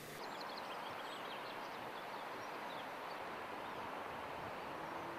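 Steady outdoor background hiss with faint, distant birds chirping now and then.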